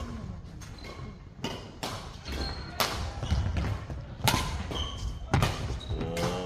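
Badminton rally: sharp racket hits on the shuttlecock roughly a second apart, with short shoe squeaks on the court floor and footfalls. A player's voice calls out near the end.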